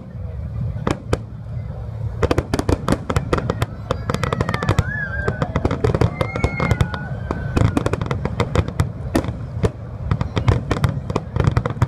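Aerial fireworks display: a dense, rapid string of shell bursts and crackling bangs over a continuous low rumble.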